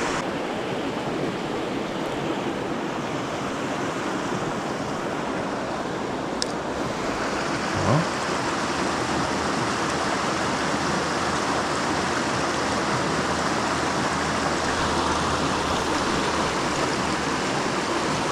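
Steady rushing of a mountain river flowing over rocks, with one short bump about eight seconds in.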